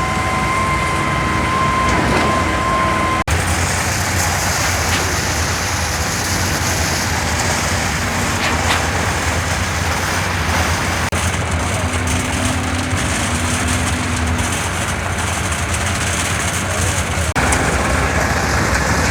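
Heavy diesel truck engines running steadily: a dense mechanical din with a low hum. The sound changes abruptly about three seconds in and again near the end.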